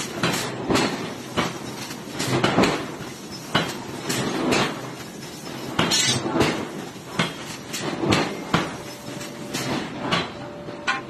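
Irregular metal clanks and knocks of forging work on hot iron, roughly one or two a second, with a faint steady hum coming in near the end.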